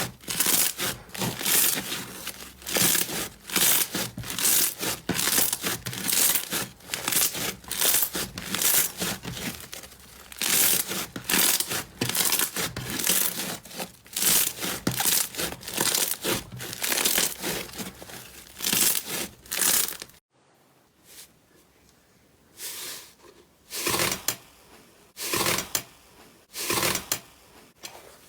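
Slime being squeezed and worked by hand, giving a dense, rapid run of crackling and popping. About twenty seconds in it cuts off, and after a short quiet a few separate crackles and pops follow.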